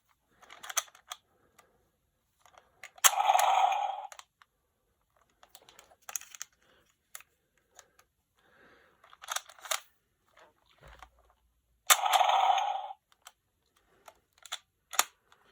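Clicks and knocks of a plastic dinosaur action figure being handled and turned over. There are two louder noisy bursts, each about a second long, about three seconds in and again about twelve seconds in.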